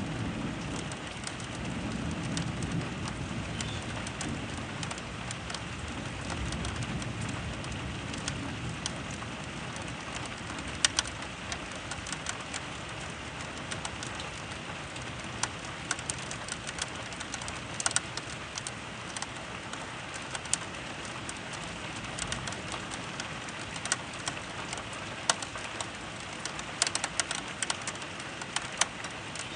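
Steady rain during a severe thunderstorm, with scattered sharp drops tapping close to the microphone that come more often near the end. A low rumble sounds under the rain and fades out over the first several seconds.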